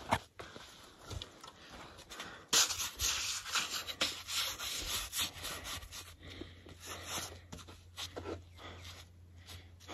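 Gloved hands handling and turning a shed elk antler: scattered rubbing and scraping of glove against antler, with a little clothing rustle, loudest for a few seconds in the middle.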